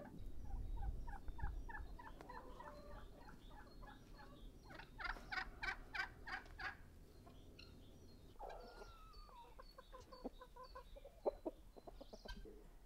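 A flock of chickens and guinea fowl calling in runs of quick repeated clucks and cackles, the loudest run about five seconds in.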